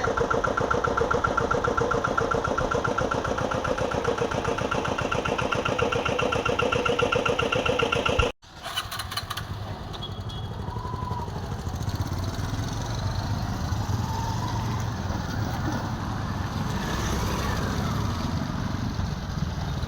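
A motor vehicle engine running with a rapid, even pulsing, cut off abruptly about eight seconds in. After the cut comes a quieter, low traffic rumble.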